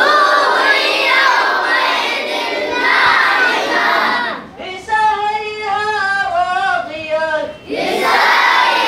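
A large group of boys chanting Quran recitation in unison, repeating a lead reciter line by line. About five seconds in, the lead boy chants the next verse alone in a clear, melodic voice, and near the end the group comes back in together.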